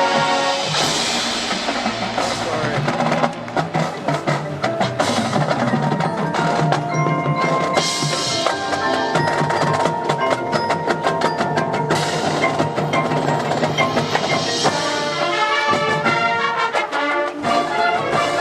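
Marching band percussion feature: mallet keyboards (marimba, xylophone, glockenspiel, chimes) and drums playing a busy passage of quick struck notes, with the brass mostly dropped out.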